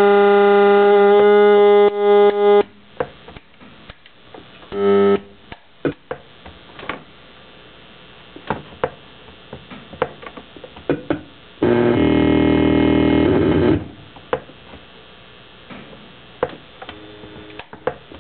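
Circuit-bent PC Junior children's learning computer glitching through its speaker: a loud buzzy electronic chord of several steady tones cuts off just under 3 s in. Sparse clicks and crackles follow, with a brief tone burst about 5 s in and another loud harsh tone from about 12 to 14 s. The glitches come from an added four-oscillator clock circuit that injects randomness into its CPU.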